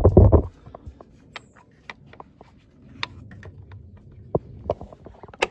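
Plastic air filter box and its spring clips on a Honda CR-V being worked by hand: a low thump at the start, then scattered small clicks and rattles, and a sharp snap near the end as the last clip latches.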